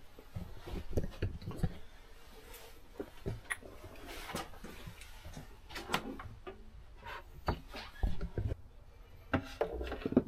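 Faint handling noise: scattered light clicks and knocks as hands move a plastic control box and its cords, with a few louder knocks in the second half.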